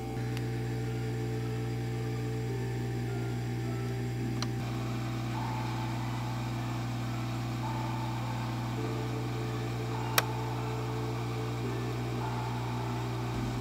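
Hot air rework station blowing steadily with a constant hum while heating a capacitor on a phone logic board to desolder it. A single sharp click about ten seconds in.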